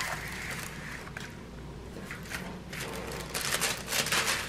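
Rustling and crinkling of a diamond painting canvas and its clear plastic film as it is handled and laid flat. The sound is loudest as a crackly stretch starting about three seconds in.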